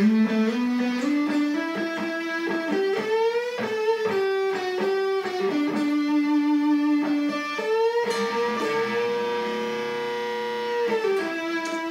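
Chapman ML7 seven-string electric guitar played through an amplifier with the gain turned up, in a single-note lead line. The notes step and slide upward at first, then a long note is sustained about eight seconds in.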